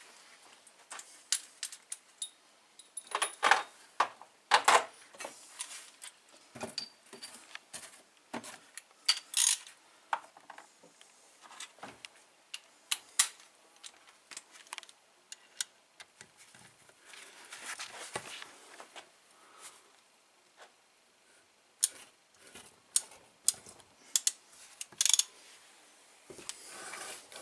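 Irregular metallic clicks, clinks and knocks of hand tools and steel engine parts being handled while prying stubborn gearbox parts out of a disassembled 125cc motorcycle engine's aluminium crankcase, with a few longer scraping sounds.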